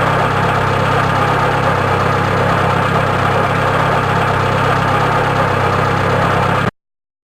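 Car engine idling steadily with a problem idle, then cut off abruptly near the end.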